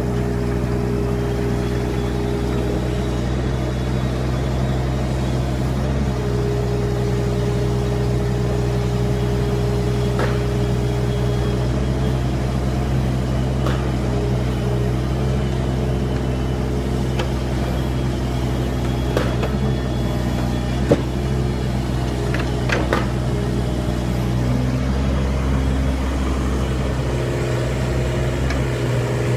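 Kubota KX41-3V mini excavator's diesel engine running steadily as the machine works, its pitch shifting slightly a few times. A few short sharp knocks and clicks stand out over it in the second half.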